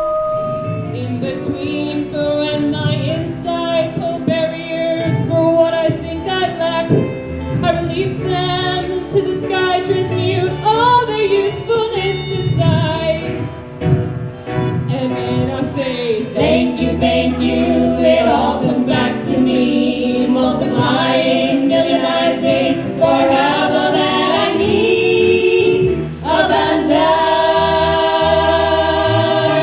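Music: a group of voices singing together, a choir-like song that carries on throughout.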